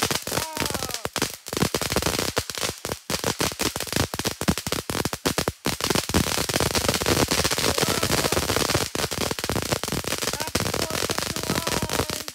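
Ground firework crackling with a dense, rapid string of sharp pops, then stopping abruptly at the very end.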